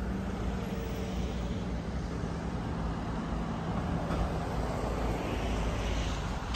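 Road traffic noise: a steady low rumble of passing vehicles that swells near the end.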